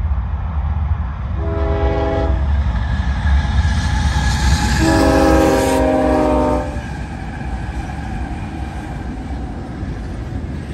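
Diesel freight locomotives in Union Pacific livery sound a multi-chime air horn as they pass: a short blast, then a longer, louder one. The engines and wheels rumble steadily under the horn, and the sound eases once the locomotives are by and double-stacked container cars roll past.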